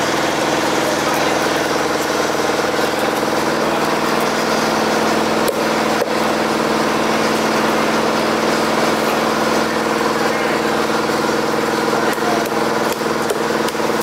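A small engine running steadily, a constant drone that does not change over a wash of background noise, with a couple of sharp knocks about five and a half and six seconds in.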